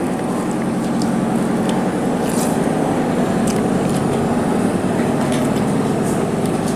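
A steady mechanical hum from an appliance running in the room, with a few faint soft clicks of a man chewing food.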